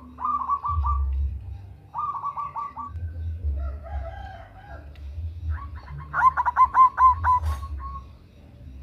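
Zebra dove (perkutut) cooing. There are three phrases of quick staccato notes, with the longest and loudest near the end, and a softer, lower call in between.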